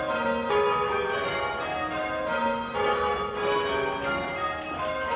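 Church tower bells rung full-circle by ringers on ropes, ringing rounds: the bells strike one after another in an even rhythm, each note ringing on under the next.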